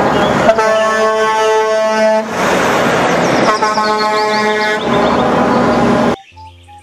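Semi-truck air horn sounding two long blasts, the first nearly two seconds and the second a little shorter, over the running engine and road noise of the passing truck. The sound cuts off suddenly about six seconds in.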